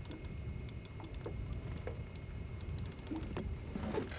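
Low steady rumble of a boat's outboard running at trolling speed, with irregular light clicks from a fishing reel as a heavy fish is reeled in under steady pressure.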